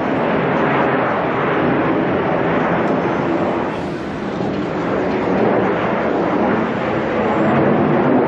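Airplane flying past: loud, steady engine noise that eases about four seconds in and then builds again.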